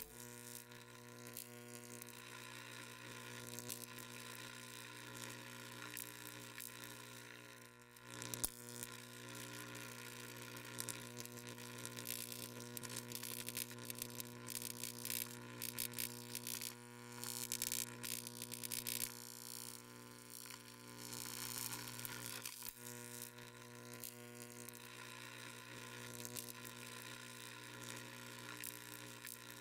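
Faint, steady electrical hum with a crackling hiss over it, and one sharp click about eight seconds in.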